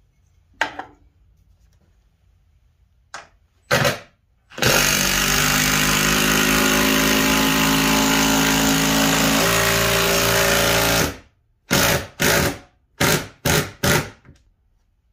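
Cordless driver sinking a lag bolt through the clamp rack into a wall stud: one long run of about six seconds, its pitch shifting near the end as the bolt seats, then about six short bursts as it is snugged down. A few knocks from handling come before it.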